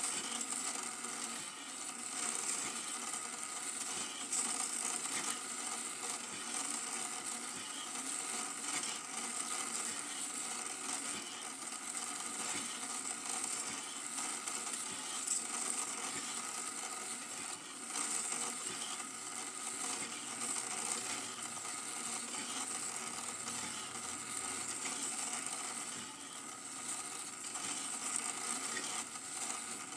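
Super 8 film projector running: a steady mechanical whirr and clatter from its film-advance mechanism.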